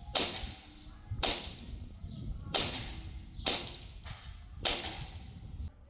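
Rossi Red Wings Gold 1911 gas blowback airsoft pistol firing five loud shots about a second apart, each a sharp gas report with the slide snapping back.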